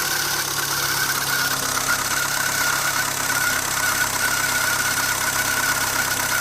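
Renault Twingo's 1.2-litre D7F four-cylinder engine idling cold, with a steady high-pitched whine or squeak over the engine note; the owner does not know what causes it.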